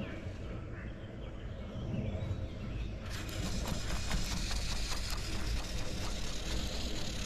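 Fly reel drag clicking fast as a hooked carp pulls line off the reel. This starts about three seconds in over a low rumble of wind on the microphone.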